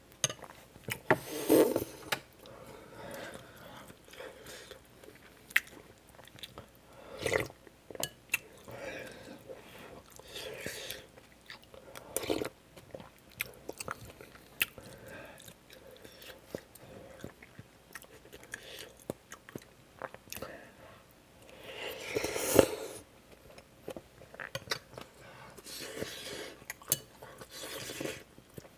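A person chewing and eating kimchi stew close to the microphone: wet, irregular chewing with many small clicks and a few louder bursts of eating noise.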